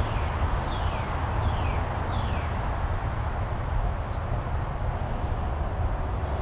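A bird giving four short, falling notes in quick succession in the first couple of seconds, over a steady rushing outdoor background.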